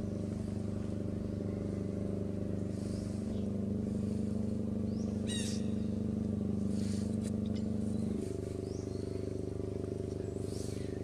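Steady low hum of an idling engine, its pitch stepping twice. A few short high chirps sound over it, the clearest a quick trill about five seconds in.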